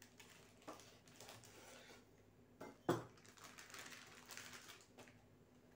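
Quiet scraping and clinking of a knife against a plate, with one sharper clink about three seconds in.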